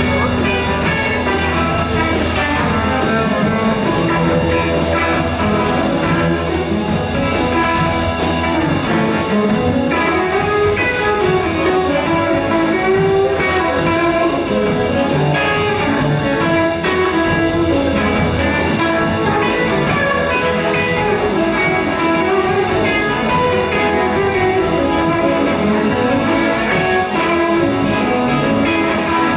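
Live 1950s-style blues band playing: two electric guitars over an upright double bass and a drum kit.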